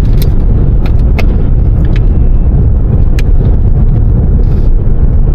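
Road noise inside a moving car: a steady low rumble, with a few brief light clicks.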